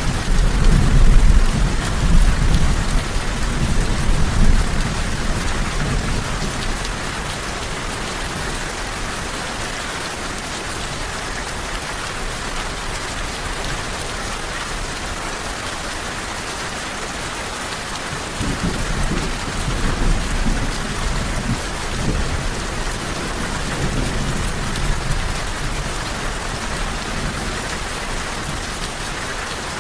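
Steady heavy rain hissing on surfaces, with low rolls of thunder rumbling through the first few seconds and again about two-thirds of the way through.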